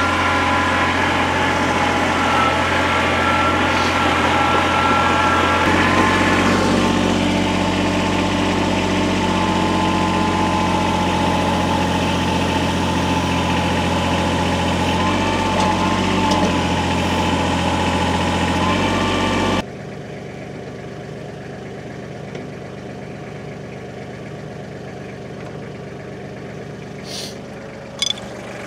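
Large truck engine running at low speed, its note shifting a few times, then cutting off abruptly about two-thirds of the way through. A quieter background with a couple of sharp clicks near the end follows.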